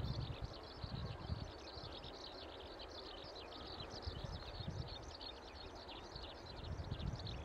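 Birds chirping continuously in a dense chorus of short, quick calls, with an uneven low rumble underneath that swells near the start and again midway.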